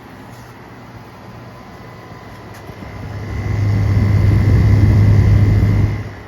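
2012 Frigidaire 5,000 BTU window air conditioner running with a steady hum. About three seconds in, a much louder low hum swells up, holds for about three seconds, then drops off suddenly near the end.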